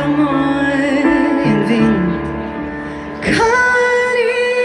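Live pop ballad over a stadium PA: sustained keyboard and bass chords under a female singer. About three seconds in she slides into a new long note held with vibrato, and the bass drops away beneath it.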